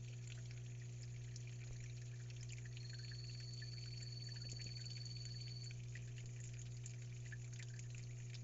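Quiet steady hum of a small terrarium water pump, with faint trickling water. A thin high whine holds for about three seconds in the middle.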